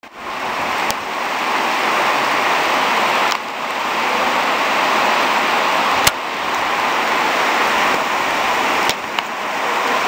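Torrential rain pouring down in a steady, loud hiss, with a few short clicks.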